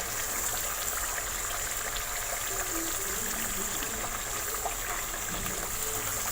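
Masala sizzling steadily as it fries in oil in a cooking pot.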